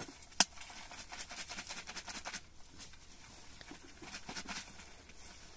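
Handling noises: one sharp click about half a second in, then scattered light clicks and taps.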